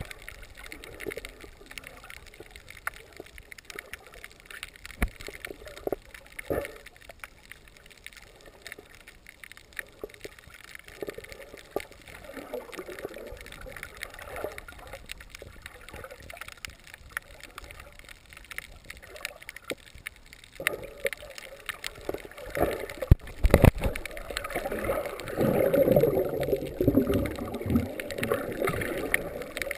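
Muffled water noise heard underwater: irregular gurgling and bubbling with scattered clicks and knocks. It grows louder and busier near the end, with a couple of sharp knocks.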